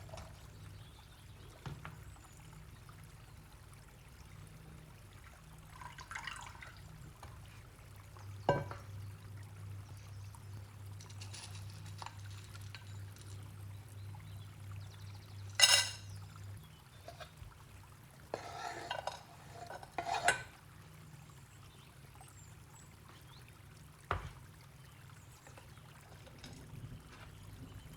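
Liquid being poured in short spells, with a few sharp clinks and knocks of kitchenware in between.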